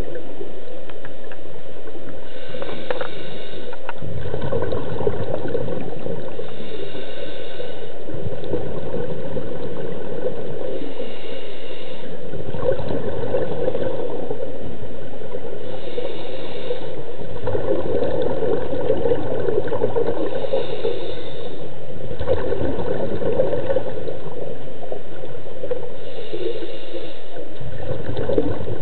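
Scuba breathing heard underwater through a regulator: breaths repeat about every four to five seconds, each exhale a loud gurgling rush of bubbles.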